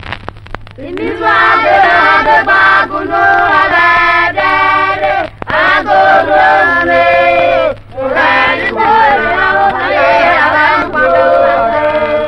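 Traditional Okpe vocal music: a chorus of voices chanting a song together, breaking off briefly twice between phrases.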